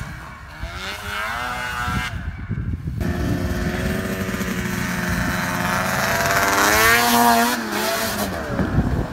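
A 1998 Ski-Doo snowmobile's 583 two-stroke twin engine running at high revs. Its pitch climbs as the sled comes closer and is loudest about seven seconds in, then the pitch falls away near the end. There is a brief break a couple of seconds in.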